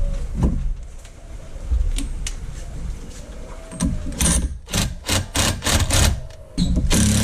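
A quick run of about eight sharp knocks, some four a second, then a steady mechanical rumble that starts suddenly near the end.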